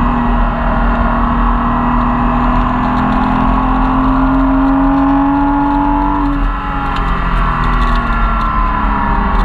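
Porsche Cayman S flat-six engine heard from inside the cabin on track, pulling under throttle with its note climbing slowly. About six and a half seconds in the throttle lifts: the sound dips and the note falls and keeps easing lower, over steady tyre and wind noise.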